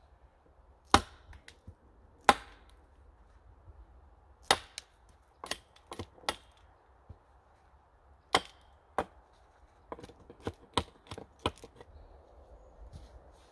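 Hatchet blows cutting into an upright wooden pole, sharp separate cracks a second or two apart, stripping bark and shaping the wood. A quicker run of lighter strokes comes near the end.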